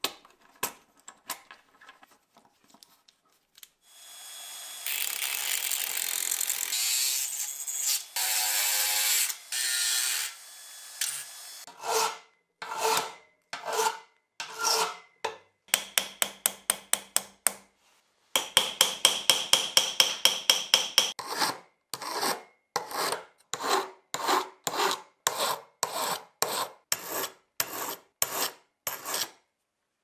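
Small hammer peening the steel pins of a pocket knife's liners on a vise anvil: sharp metallic taps, single at first, then a fast run, then a steady two or so a second. Earlier, after a few faint clicks, comes a stretch of several seconds of continuous rasping.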